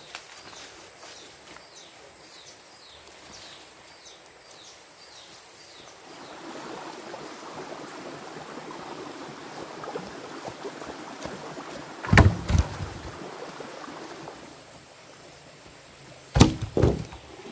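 Wooden poles thudding heavily onto the ground: one thud about twelve seconds in and two close together near the end. Between them come footsteps rustling through dry cut grass, and in the first few seconds a bird's repeated short falling chirps.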